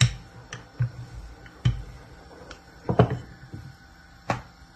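Wooden rolling pin rolling out paratha dough on a wooden board, giving sharp knocks against the board at irregular spacing, about one a second.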